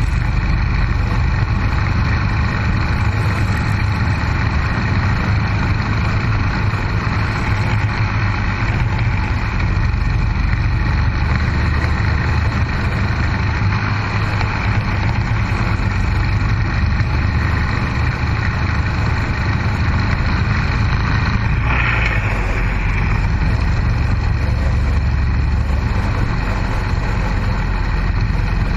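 Motorcycle engine running steadily at highway cruising speed, with wind and road noise, and a brief change in the engine note about three-quarters of the way through.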